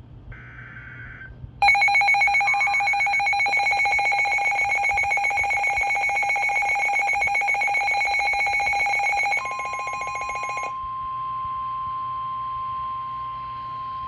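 The last buzzy SAME data burst of a NOAA Weather Radio alert header, then Midland weather radios sounding their loud, rapidly pulsing electronic alarm for about eight seconds as the Severe Thunderstorm Warning comes in. As the radios' alarm cuts off, the broadcast's steady single-pitch warning alarm tone carries on until just before the end.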